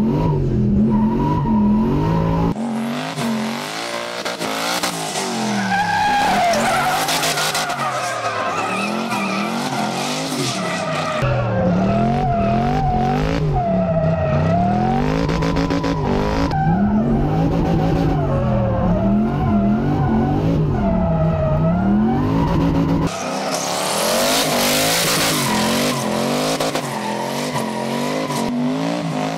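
Twin-turbo LS V8 of a Nissan 350Z drift car revving up and down again and again through sustained drifts, with the rear tyres squealing. The sound changes abruptly several times, a few seconds in, near the middle and later on.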